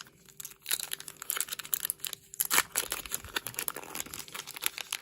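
Foil wrapper of a Pokémon trading-card booster pack being torn open and crinkled by hand, a dense run of irregular crackles.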